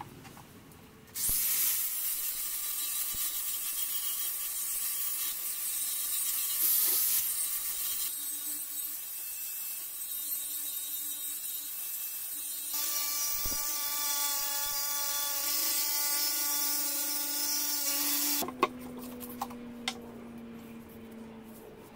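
Angle grinder starting up about a second in and grinding on a rusty steel brake disc: a high whine over harsh grinding noise, its tone shifting a couple of times as the load changes. It stops suddenly near the end, leaving a few light clicks.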